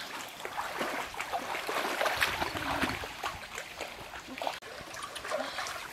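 Shallow stream water trickling, with small irregular splashes.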